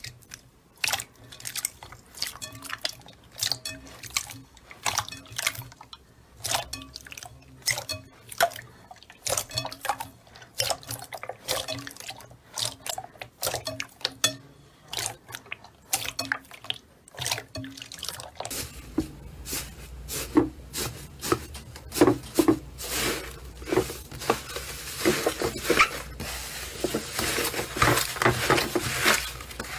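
Slime being squeezed and pressed by hand: a steady run of short, wet clicking pops, a few a second, growing denser and louder past the middle.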